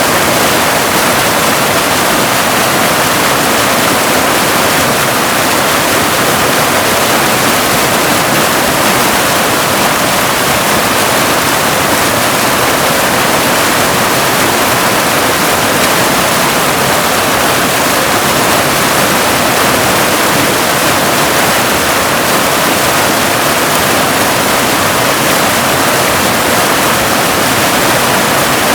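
Waterfall: a loud, steady rush of falling water that holds an even level throughout, with no splashes or other events standing out.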